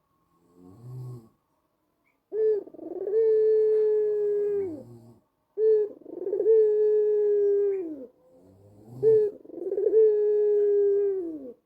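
White Barbary dove (puter putih with a black neck ring) cooing: a soft low note about a second in, then three long coos, each a short lead-in note followed by a long held note that falls away at the end.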